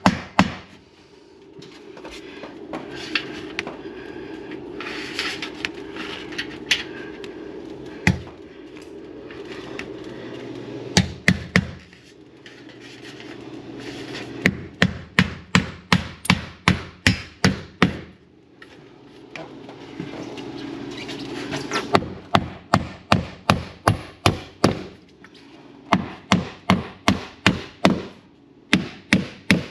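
Claw hammer driving nails through the metal ceiling molding into the wooden backer board. It comes in quick runs of sharp blows, about three a second, with pauses between runs and only a few scattered knocks in the first third. A steady low hum runs underneath.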